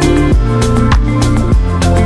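Background music with a steady beat, about three strikes a second, over a bass line.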